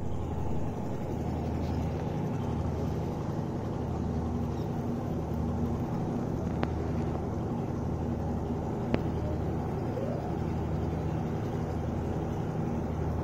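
A steady low hum, like a motor or engine running, with two sharp clicks about halfway through and again two seconds later.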